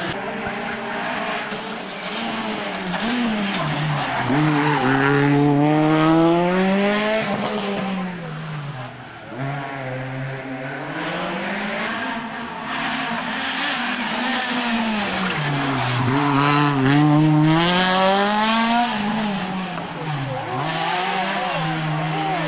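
Rally car engine on a closed special stage, revving hard as it climbs, then dropping back at each gear change and corner, over and over, loudest about a third of the way in and again near the end.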